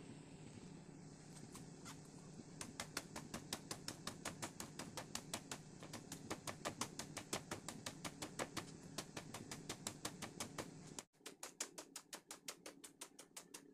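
Knife blade drawn repeatedly along a peeled fresh bamboo shoot, shredding it into thin strips: a quick run of crisp scraping clicks, about five strokes a second, starting a few seconds in. A low steady hum underneath cuts out about eleven seconds in while the strokes go on.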